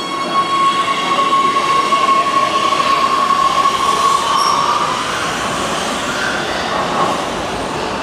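Oslo metro train running on the rails with a steady high-pitched wheel squeal that fades out about four to five seconds in, over a continuous rumble of the train.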